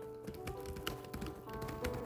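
Typewriter keys striking in an irregular run of sharp clacks, over background music with long held notes.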